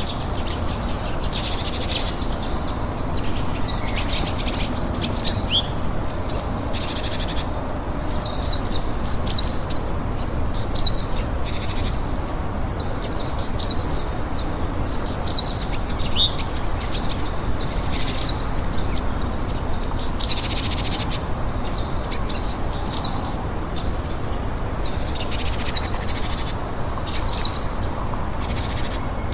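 Woodland songbirds chirping busily, a constant stream of short high calls, over a steady hiss of rain.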